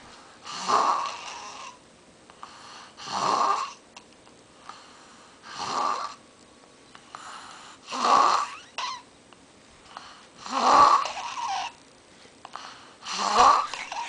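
Snoring: six loud snores at an even pace, about one every two and a half seconds, each lasting about a second, with quiet breathing between them.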